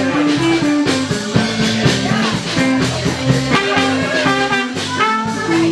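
A live band playing with guitar and a steady drum beat, no singing.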